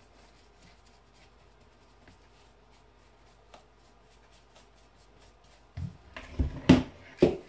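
A small brush dabbing and scraping whitening solution into the crevices of a deer skull, faint and scratchy. About six seconds in come several louder knocks and bumps as the antlered skull is taken hold of and shifted on the worktable.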